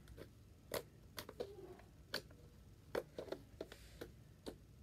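Butter slime being poked and pressed with the fingers: a string of short, irregular clicks and pops, about ten in under five seconds.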